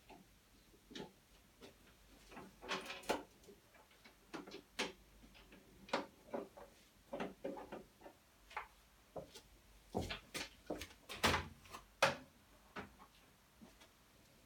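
Irregular light clicks and knocks of hand tools and plastic fairing panels being handled as a motorcycle's front panel is unbolted. A few sharper knocks come about two-thirds of the way through.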